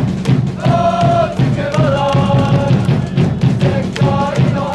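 Voices singing long held notes over a steady drum beat.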